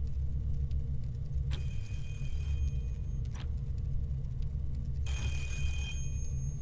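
An old candlestick telephone's bell ringing twice, in short rings about a second long, one about a second and a half in and one about five seconds in, over a steady low machine hum. A single sharp click comes between the rings.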